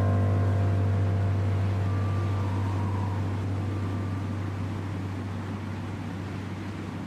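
A deep, steady low drone from the film's score, which comes in suddenly just before and slowly fades away, over faint outdoor wind noise.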